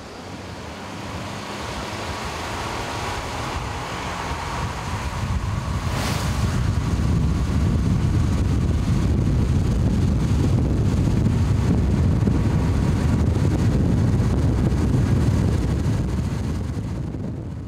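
Strong wind gusting across the microphone, a low rumbling rush that builds through the middle and fades away near the end. A sharp click sounds about six seconds in.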